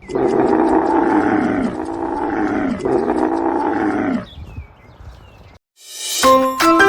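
Camel calling: one long call of about four seconds, in two parts, each falling in pitch. Near the end a bright, plinking music jingle starts.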